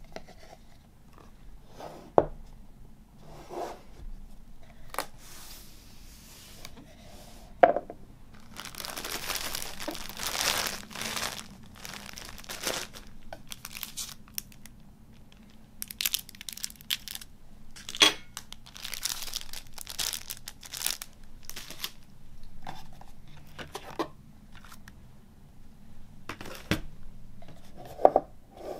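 Packaging being handled: plastic wrapping crinkles and rustles in two longer stretches, between sharp knocks of the cardboard box and its contents being set down on a wooden table.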